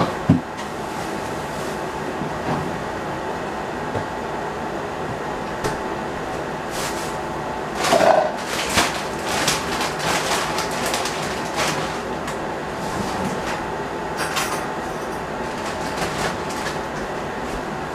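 Steady whir of a kitchen exhaust fan, with a sharp knock right at the start and scattered clinks and clatter of kitchen utensils and cookware about halfway through and again near the end.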